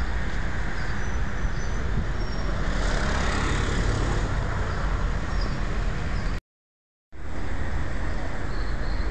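Steady outdoor background noise with a deep rumble and hiss, like distant traffic or wind on the microphone; it cuts out completely for under a second about six and a half seconds in.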